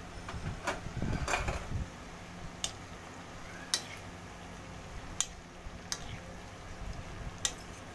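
Steel spoon clinking and scraping against an aluminium kadhai while stirring okra and onions: sharp metal clinks about once a second, with a longer scrape about a second in.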